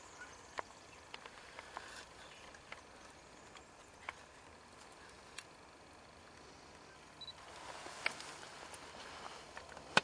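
Quiet outdoor background hiss with scattered faint clicks and ticks, a brief high chirp about seven seconds in, and the hiss growing a little louder near the end; the sea-eagles are not calling.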